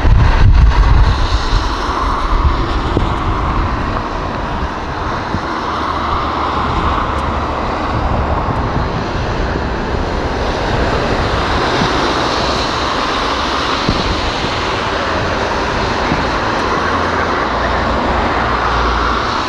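Distant jet engines of an Airbus A330F freighter running on the ground, heard as a steady, dense rumble and hiss mixed with storm noise. A loud low buffeting comes in the first second or so.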